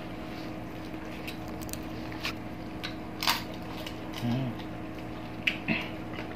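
Close-up eating sounds of fried fish eaten by hand: a few scattered soft smacks and crunches of chewing and picking at a fish head, with a short closed-mouth 'mm' about four seconds in.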